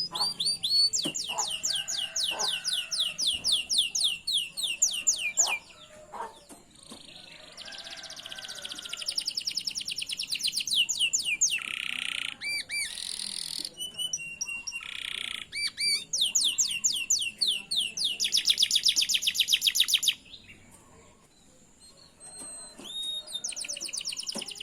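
Domestic canary singing a tutor song: long rolling trills of rapid repeated high chirps, in phrases broken by a short pause about six seconds in and a longer one near the end.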